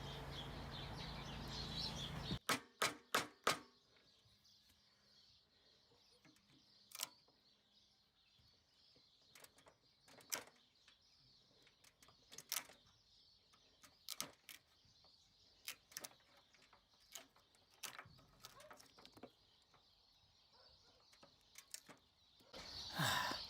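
Sharp knocks from work on a timber roof beam: a quick run of four, then single knocks every second or two, over a quiet outdoor background. A steady noise cuts off about two seconds in.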